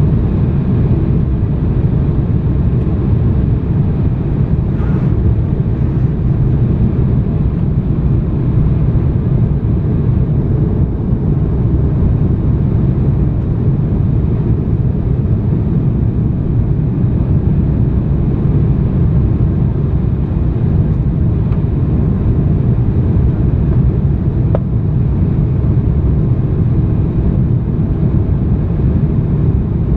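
Steady low rumble of an airliner's cabin noise, engines and rushing air heard from inside the passenger cabin on the approach to landing.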